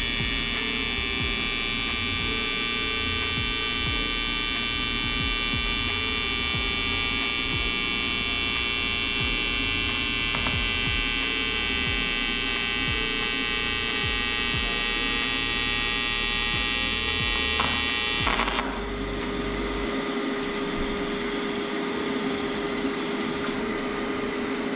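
AC TIG arc from an AHP AlphaTIG 201XD welding aluminium: a steady, high-pitched buzz that cuts off about eighteen seconds in, leaving the welder's lower steady hum.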